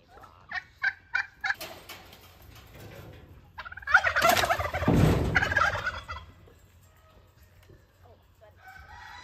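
A short series of poultry calls, then a loud rustling clatter lasting about two seconds as a sheet of mesh netting is thrown aside.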